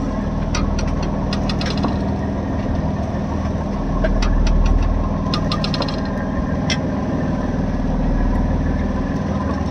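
Fishing boat's engine running steadily at a low even throb, with two runs of light clicking and ticking over it in the first six seconds.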